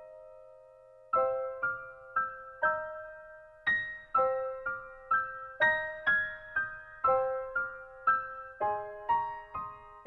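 Background music: solo piano playing a slow melody of single notes, about two a second, each struck and fading out, coming in after a short pause about a second in.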